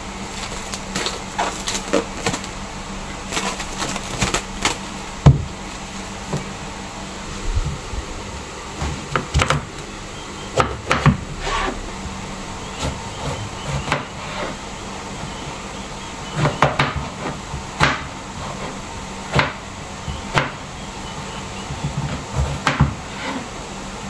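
Plastic cling wrap crinkling as it is peeled off a purple eggplant, then a kitchen knife cutting the eggplant on a plastic cutting board: irregular knocks of the blade meeting the board between slices.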